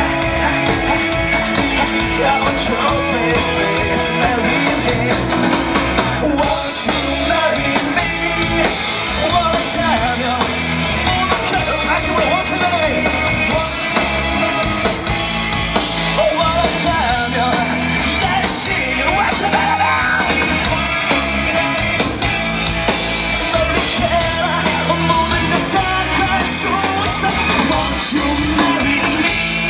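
Live rock band playing a song loud through a festival PA: electric guitar, bass guitar and drums.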